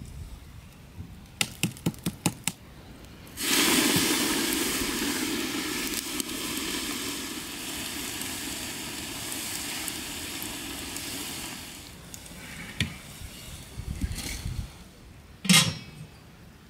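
A hot, charred log plunged into a pot of fish soup hisses and sizzles, setting in suddenly and fading over about eight seconds as it quenches. A few quick knocks come before it, and near the end there is one sharp clank, the metal lid going onto the pot.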